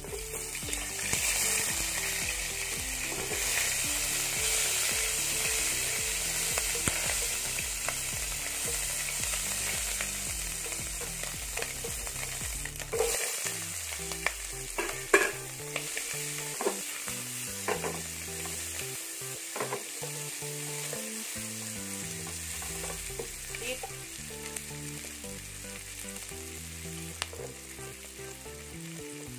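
Hot oil sizzling steadily in a nonstick frying pan as dried shrimp fry, then sliced onion, garlic and chili go in. Through the middle there is a run of knocks and scrapes as the ingredients are added and stirred with a spatula.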